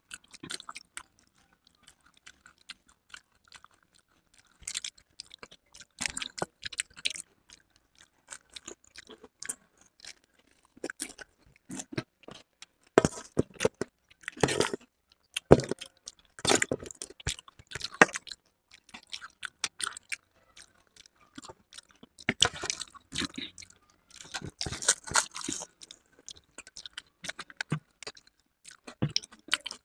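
Chewing and crunching of dahi golgappe, crisp puri shells filled with curd, in irregular bursts of crackling bites.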